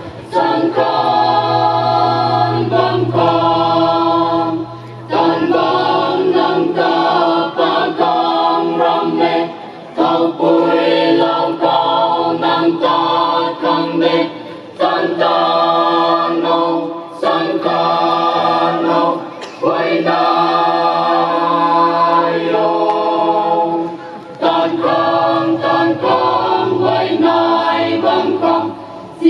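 Mixed choir of men's and women's voices singing together in phrases of about five seconds, with short breaks for breath between them.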